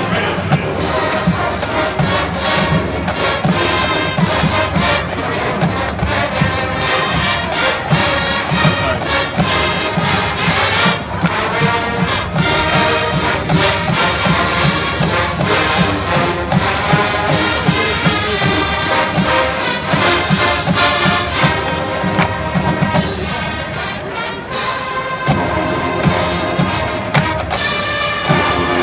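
A marching band playing a brass-led piece, trumpets and trombones over steady drum strokes, heard across an open stadium. The music moves into a new passage about 25 seconds in.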